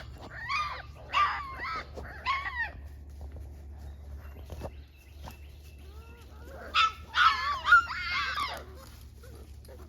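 Young puppies whimpering and yelping in high-pitched cries: three short bursts in the first three seconds, then a longer, louder run of cries about seven seconds in. A steady low hum runs underneath.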